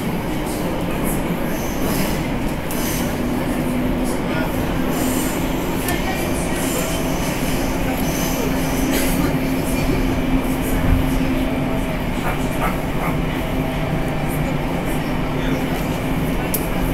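Cabin noise of a Moscow Metro 81-765/766/767 'Moskva' train running through a tunnel: a steady rumble and rush. A steady hum joins about three seconds in, with scattered clicks from the wheels on the rails.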